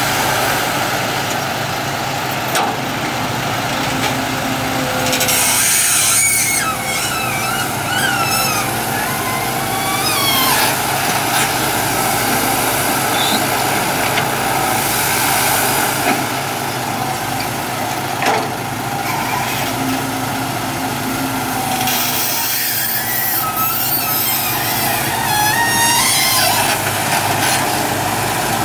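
Diesel engine of a Kobelco hydraulic excavator running steadily as it works, loading soil into a dump truck, with the truck's engine idling under it. Louder spells of hissing noise come about five seconds in and again near twenty-two seconds.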